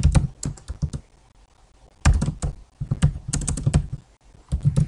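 Typing on a computer keyboard: quick runs of keystrokes in short bursts, with a pause of about a second after the first run.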